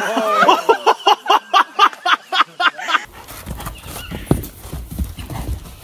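A person laughing hard in quick bursts, about five a second, for about three seconds. After a cut, a horse's hooves thud on soft sand as it moves about.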